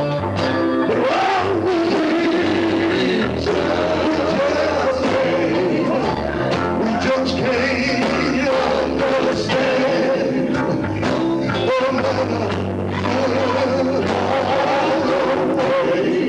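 Live gospel music: a male lead singer sings with vibrato into a microphone over electric guitars and a steady low bass line, amplified through a PA.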